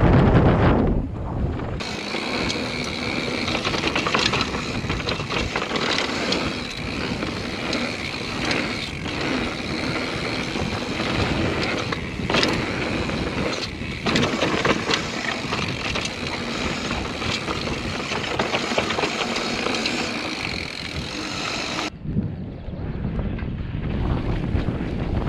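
Mountain bike riding down a dirt trail heard through an action camera's microphone: tyres rolling over dirt and gravel, with rattles and knocks and a steady high whir. Heavy wind buffeting on the microphone at the start and again near the end. For most of the middle the wind is largely kept off by a home-made foam wind cover over the camera.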